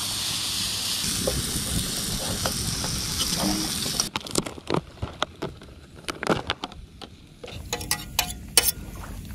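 Meat sizzling in a hot skillet over a campfire, a steady frying hiss that stops abruptly about four seconds in. After that it is quieter, with scattered clicks and taps of a metal utensil against the pan.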